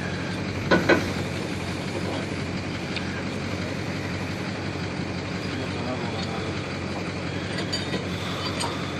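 Vehicle engine idling steadily, with two short louder sounds about a second in.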